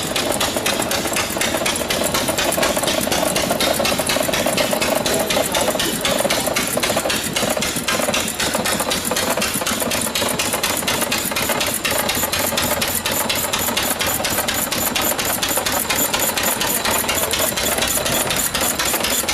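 Old engine running with a fast, even clatter of knocks.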